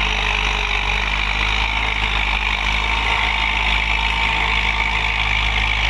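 Farm tractor's diesel engine running steadily under load as it pulls a tined cultivator through the soil.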